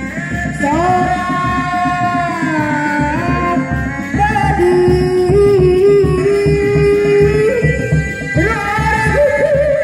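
Sundanese reak music: dog-dog drums beating a steady rhythm under a melody of long held notes that slide from pitch to pitch.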